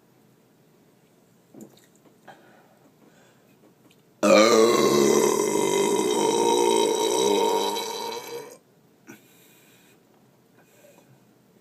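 A person's single long, loud burp, starting suddenly about four seconds in and lasting about four seconds, brought up after drinking Diet Coke.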